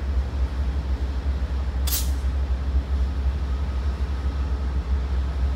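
Amtrak GE Genesis diesel locomotive idling at a standstill with a steady low drone. About two seconds in comes one short, sharp hiss of air from the train's air brakes.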